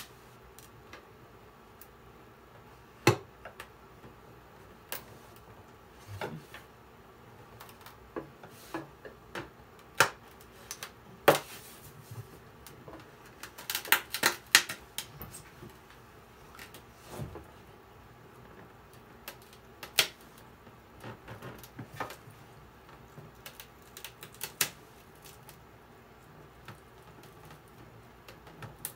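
Glue joint between a cello's top and its ribs cracking and popping apart as a thin blade is worked into the seam: scattered sharp cracks and clicks, with a quick run of them about halfway through.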